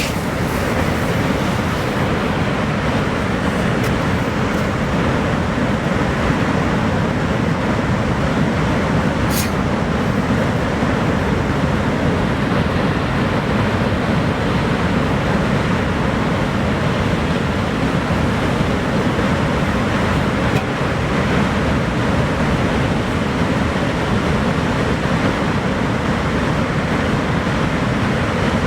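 Niagara Falls' steady roar of falling water: a loud, even rush, deepest in the low end and without a break.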